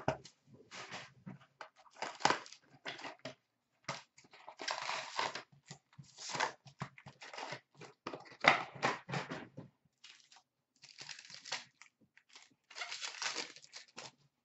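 A cardboard box of hockey trading cards and its card packs being torn open by hand. Irregular bursts of ripping and crinkling wrappers come with short pauses, the sharpest rip about eight seconds in.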